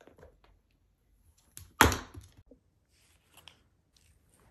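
A single sharp thump about two seconds in, ringing out briefly, with faint clicks and rustles around it.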